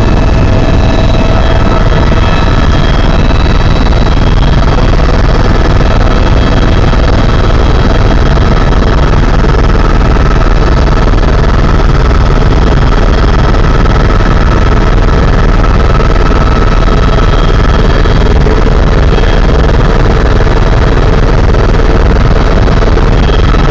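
Helicopter in flight heard from inside the passenger cabin: a loud, steady rotor and turbine drone with a few faint steady whines above it.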